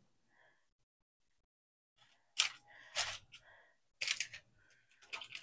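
A few short scrapes of a metal fork on an aluminium foil baking pan, loosening baked salmon from the foil, beginning about halfway in and coming closer together near the end.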